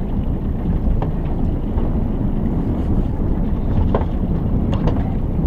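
Steady low rumbling noise of wind on the microphone and the small boat underway on the water, with a few brief sharp sounds.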